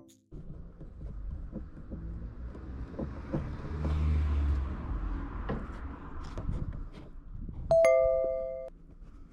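Low road-and-engine rumble of a Toyota Vitz (SCP10) on the move, with a few faint knocks, swelling about halfway through. Near the end, a two-note falling electronic chime, ding-dong, lasting about a second.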